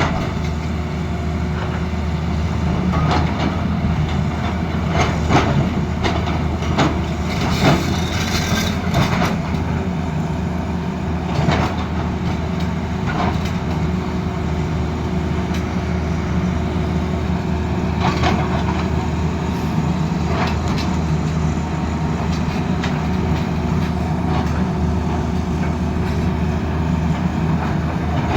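Tata Hitachi excavator's diesel engine running steadily, with irregular metal-and-stone clanks and knocks over it.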